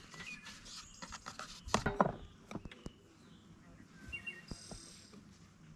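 Birds chirping now and then over outdoor background noise, with scattered light clicks and knocks and a brief louder sound about two seconds in.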